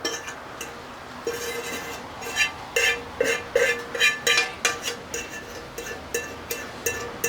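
Background music: a light melody of plucked-string notes, one every half second or so.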